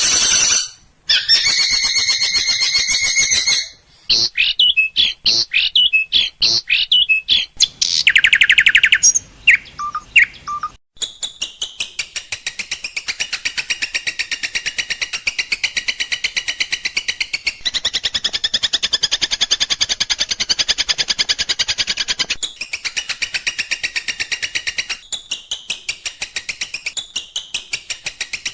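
Songbird calls spliced together from several recordings. First come short, sharp, high phrases with abrupt cuts between them. From about 11 s in, one long, fast, evenly repeated chattering call takes over.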